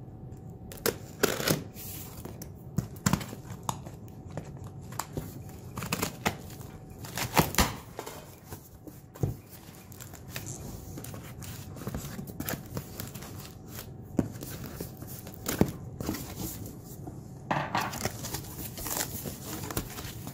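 Sealed cardboard shipping box being torn open: packing tape ripping and stiff cardboard flaps scraping and flexing, with irregular sharp rips and knocks, the loudest about seven to eight seconds in. Paper and packing inside rustle as contents are lifted out near the end.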